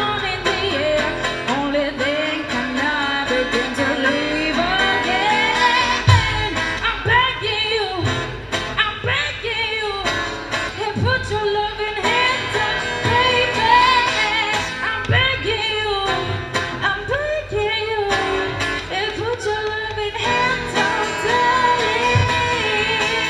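Live acoustic cover: a steel-string acoustic guitar strummed in a steady rhythm under female lead vocals.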